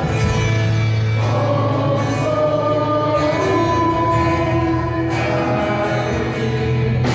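Gospel-style Christian music with a choir singing held notes over a steady accompaniment.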